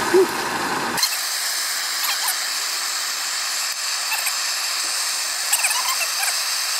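Bass fillets sizzling in oil in a small steel frying pan, with a few short metal squeaks and scrapes of a knife against the pan. The low roar of the MSR camp stove stops abruptly about a second in, after a short blip right at the start.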